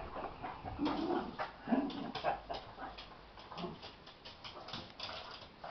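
Two Lhasa Apso dogs play-fighting: two short, low, growling whines about a second in and just under two seconds in, then a run of quick scuffling clicks as they tussle.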